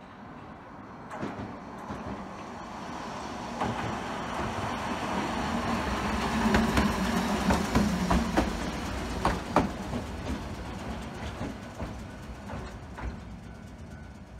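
1928-built Hankai Tramway car No. 166 passing close by on its track. The running noise grows to a peak about halfway through, with a hum and a run of sharp clacks as the wheels cross rail joints, then fades as the car moves away.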